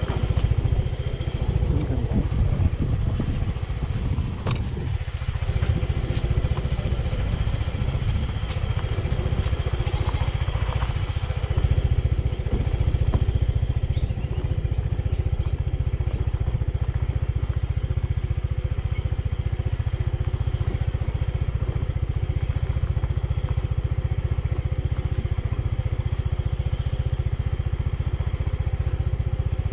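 Motorbike running as it rides downhill over a rough dirt track, a steady low rumble with occasional knocks and rattles from the bumpy ground.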